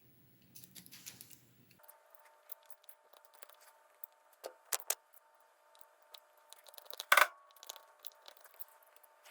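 X-Acto knife scraping and picking stray plastic strands out of a 3D-printed frame, making scattered small scratches and clicks over a faint steady hum. There are a couple of sharper snaps, and a loud crack about seven seconds in.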